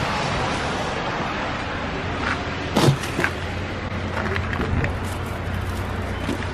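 Steady vehicle and traffic noise with a low hum, and one sharp thump just before three seconds in, followed by a few lighter knocks.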